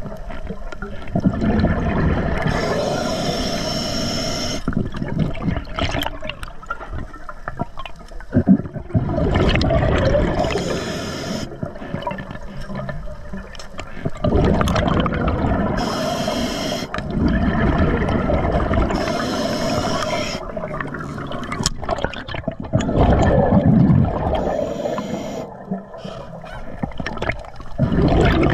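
A scuba diver breathing through an Atomic regulator underwater: about five breaths, each a burst of hiss and bubbling exhaust, over a steady churning rumble of water.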